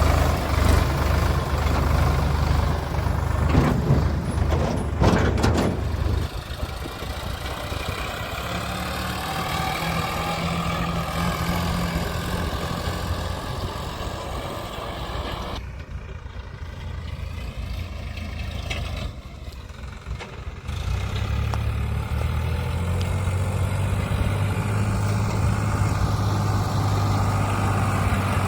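Diesel engine of heavy farm or earthmoving machinery running, its note shifting: strong at first, lighter and quieter for a stretch in the middle, then strong and steady again for the last several seconds.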